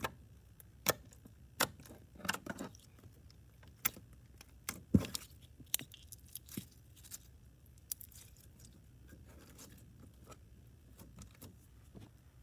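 Slime filling from a mesh squeeze ball being poked and squeezed with fingers: irregular sharp little clicks and pops, the loudest cluster about five seconds in, fading to faint clicks near the end.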